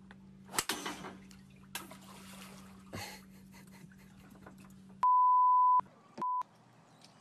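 A sharp hit about half a second in as a golf club swings at a bottle on a dock. Then a loud, steady censor bleep tone sounds for under a second, followed soon after by a shorter second bleep.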